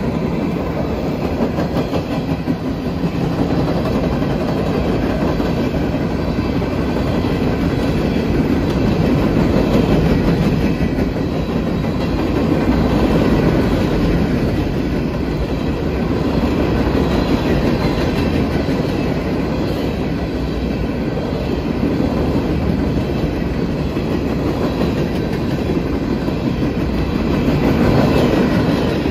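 Empty CSX coal train's open hopper cars rolling past at speed: a steady noise of wheels on rails that swells and eases as the cars go by, starting to fall away near the end as the last car passes.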